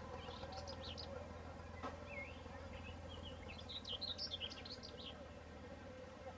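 Countryside ambience of birds chirping over a steady buzz of insects, with a quick flurry of chirps about four seconds in.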